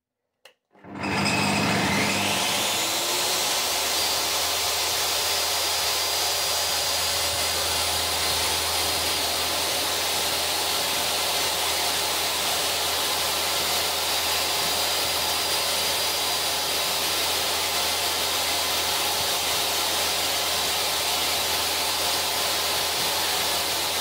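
DeWALT table saw's brushed motor switched on with a click, whining up to speed over about two seconds, then running steadily.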